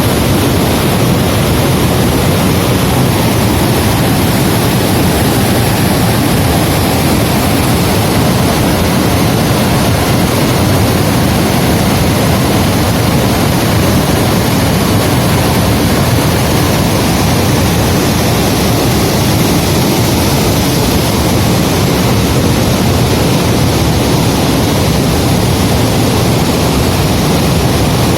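A torrent of water pouring over a dam like a waterfall: a loud, steady, unbroken rush.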